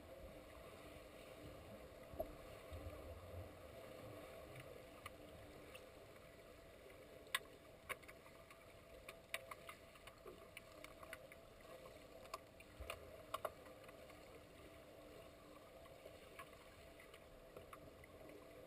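Faint underwater swimming-pool ambience heard through a submerged camera: a steady low hum with scattered sharp clicks and taps, most of them in the middle of the stretch.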